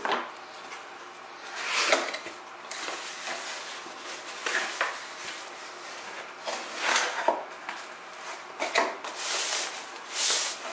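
Cardboard packaging being handled during an unboxing: the box and its inner packing sliding and rubbing against each other in a run of irregular scrapes and rustles, the loudest about two seconds in.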